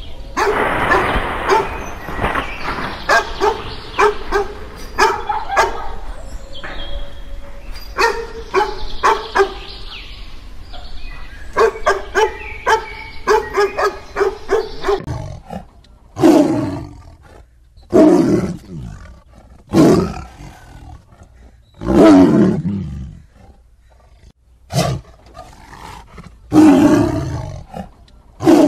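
Dog barking in quick clusters of short barks for the first half, then a tiger roaring: a string of loud roars about every two seconds, each falling in pitch.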